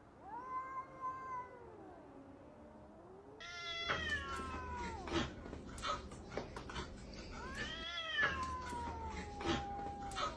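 A domestic cat gives one drawn-out meow, then about three seconds in it yowls in long wails that fall in pitch while a puppy paws and pins it. The yowls come with scuffling clicks and thumps.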